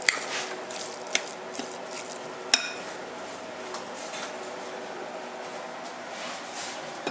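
Metal spoon stirring a rice-and-bean tacu tacu mixture in a glass bowl, with three sharp clinks of the spoon against the glass in the first three seconds, the loudest ringing briefly about two and a half seconds in.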